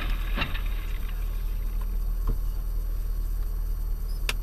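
Steady low hum inside a stopped car's cabin, picked up by a dashcam microphone, with a couple of faint knocks and a short run of sharp clicks near the end.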